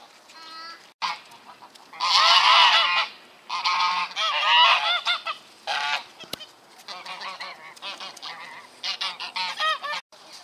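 Domestic geese honking in a long run of calls. The calls are loudest in two bursts about two and four seconds in, then carry on more softly.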